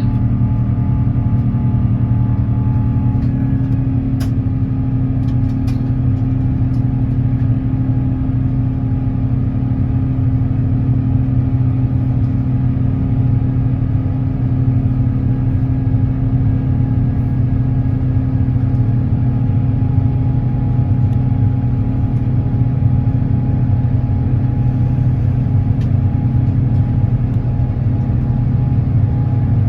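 Steady low rumble and engine hum inside the cabin of an Airbus A350-900 with Rolls-Royce Trent XWB engines. A few faint clicks come about four to six seconds in.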